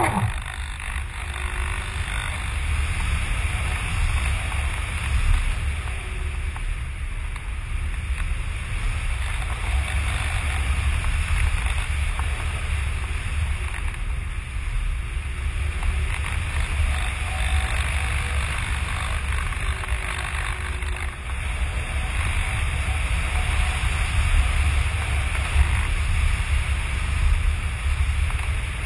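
Wind noise from airflow rushing over an onboard camera's microphone on an RC plane in flight: a steady heavy rumble with a hiss over it, and no clear motor tone.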